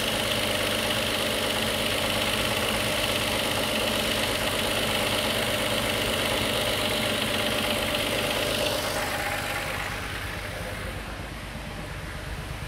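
Toyota Avalon V6 engine idling fast, around 1000 rpm, running rough with a misfire and shaking hard. The misfire follows a faulty fuel injector. The sound gets a little quieter about nine to ten seconds in.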